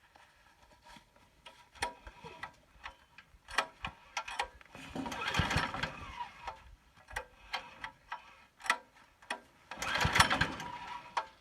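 Small single-cylinder 168F diesel engine being pull-started from cold with its recoil starter, turned over twice without catching, with clicks of handling between the pulls. It fails to fire in the freezing cold without ether or preheat.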